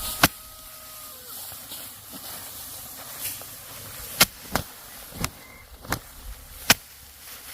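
A series of sharp wooden-sounding knocks or clacks, six of them at uneven intervals, one just after the start and the rest bunched in the second half.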